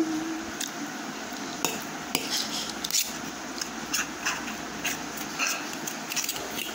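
Metal fork clinking and scraping against a stainless steel plate while twirling and picking up instant noodles, in irregular light knocks a second or so apart.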